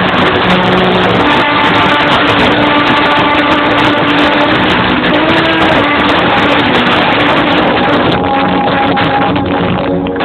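Loud circus show music with held notes, heavily distorted by an overloaded phone microphone.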